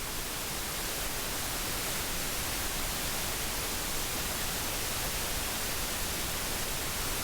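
Steady, even hiss with nothing else standing out: background noise of the recording.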